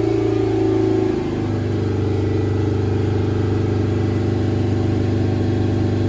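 Toyota Hilux's 1KD-FTV four-cylinder common-rail turbo diesel held at a raised, steady speed of about 3000 rpm. The engine note shifts slightly about a second in, then stays even.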